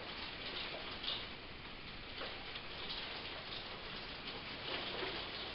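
Rain falling in a thunderstorm: a steady hiss with scattered, irregular ticks of drops striking a nearby surface.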